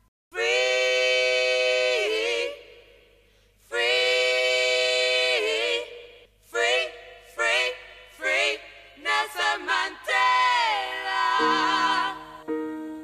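Unaccompanied solo voice singing long held notes that waver into vibrato at their ends, then a run of shorter notes and another long held note. A piano comes in near the end with soft repeated chords.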